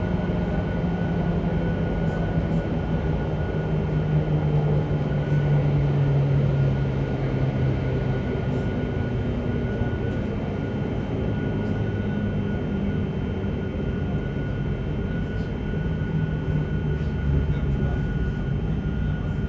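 Running noise inside JR Hokkaido 731-series electric car Moha 731-109: a loud, rough traction-motor drone from its Otaru-end bogie, like an old nose-suspended (tsurikake) motor. It is an abnormal noise from that motor. The drone falls in pitch over the first several seconds as the train slows, over a steady high whine and wheel-on-rail rumble.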